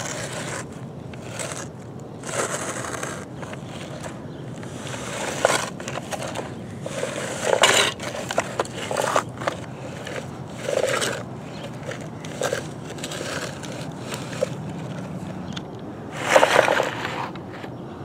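Tonka toy bulldozer's steel blade pushed through sand, scraping and crunching in irregular strokes as the hole is filled in.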